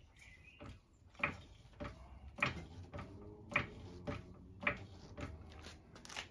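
Hydraulic trolley jack being pumped by its long handle, with a sharp clack on each stroke about every half second.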